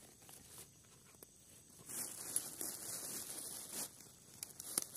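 Rustling and crinkling of a food wrapper being handled and opened, for about two seconds in the middle, with a few small clicks.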